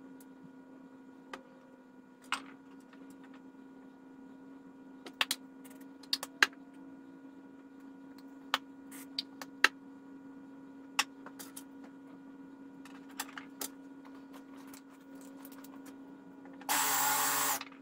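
Hand tools knocking and clicking against the pegs and wooden back of a tool cabinet as they are hung up: scattered single knocks, a few in quick pairs, over a steady hum. Near the end, a loud burst of noise lasts under a second.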